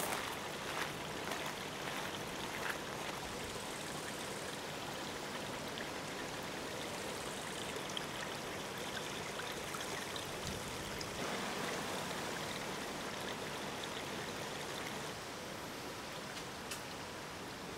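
A steady rushing noise like running water, with a few light clicks in the first seconds; its tone shifts about eleven seconds in and it drops slightly about fifteen seconds in.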